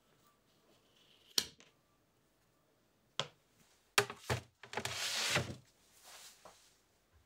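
A single sharp click about a second in. Then a few knocks and about a second of scraping as a silicone baking mat carrying a dough-lined tart ring is set on a refrigerator's glass shelf and slid back.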